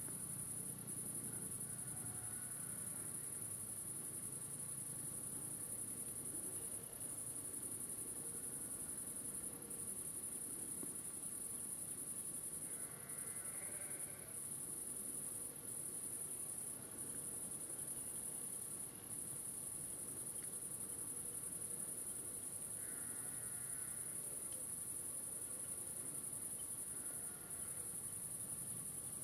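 Crickets stridulating in a continuous high-pitched drone with a few brief breaks, with a couple of short faint calls standing out around the middle and again later.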